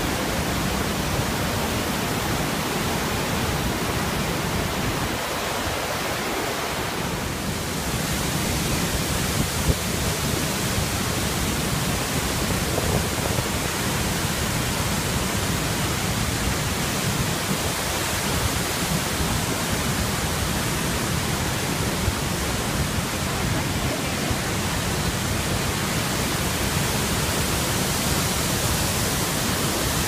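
The Iguazu Falls pouring into the river below: a steady, unbroken rush of falling and churning water.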